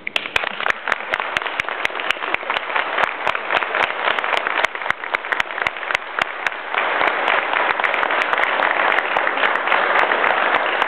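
Audience applauding at the end of a dance performance, the clapping growing louder about seven seconds in.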